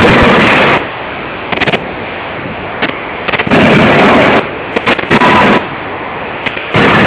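C92K CNC hydraulic die forging hammer working: loud bursts of rapid striking, each lasting under a second, come about every three to four seconds. Short clusters of sharp knocks fall in between.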